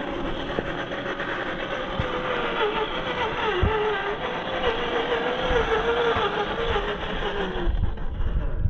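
RC scale crawler driving, its electric motor and gearbox whining, the pitch wavering up and down with the throttle, over a dense scraping, grinding noise. There are a couple of sharp knocks, and the sound cuts off near the end.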